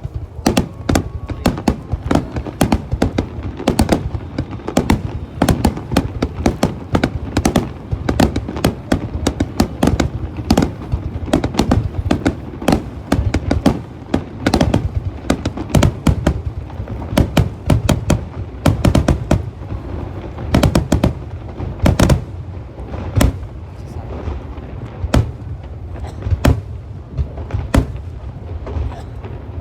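Aerial fireworks bursting in dense, rapid volleys of sharp bangs over a low rumble. The bangs thin out to fewer, more spaced shots in the last several seconds.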